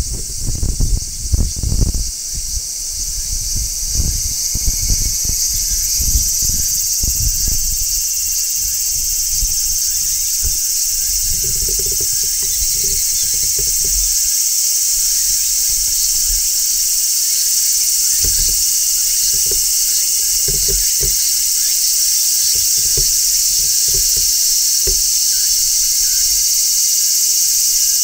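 Large brown cicada singing a continuous, high-pitched sizzling buzz that swells over the first few seconds and then holds steady. Low thumps and rumble come through in the first several seconds, with occasional soft knocks later.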